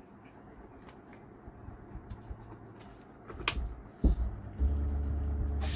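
A few faint clicks, then about four seconds in a thump as a 4440-IC audio amplifier board is powered up, followed by a steady low hum from its speaker. The hum is the unwanted extra noise of the faulty amplifier, whose sound comes out distorted.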